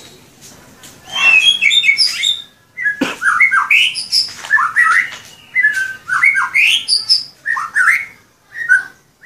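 Caged white-rumped shama singing: a rapid run of varied whistled and chirping phrases in short bursts with brief pauses, starting about a second in. A single sharp knock sounds about three seconds in.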